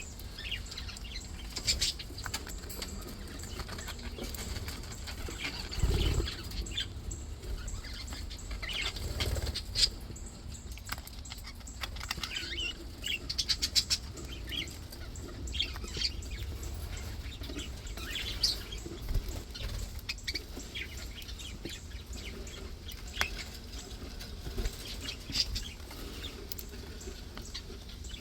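Pet budgerigars chirping and chattering in short, scattered calls, with occasional wing flutters and a few soft thumps, the strongest about six seconds in.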